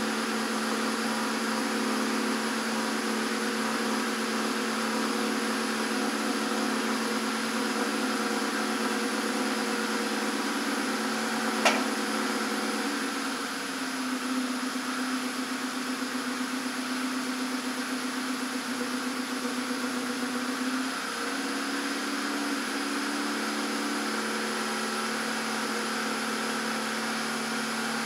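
Citroën GS engine idling as it warms up after a cold start, a steady hum. A short sharp click comes near the middle, and soon after the idle note shifts and stays changed for several seconds before settling back.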